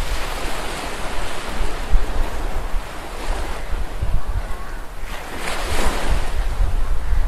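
Outdoor wind buffeting the microphone: an uneven low rumble under a steady rushing noise that swells briefly about five and a half seconds in.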